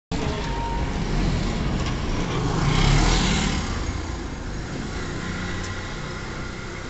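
Street traffic noise: a road vehicle passes close by, rising to a peak about three seconds in and then fading.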